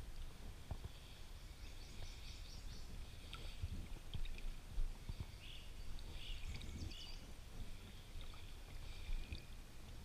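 Shallow lake water sloshing and swishing around a wader's legs in uneven low splashes, with birds chirping in the background.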